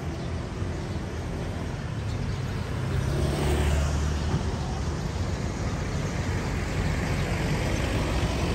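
Street traffic: a motor vehicle passes close by, its engine rumble swelling about three to four seconds in, followed by a rising hiss of tyre and traffic noise.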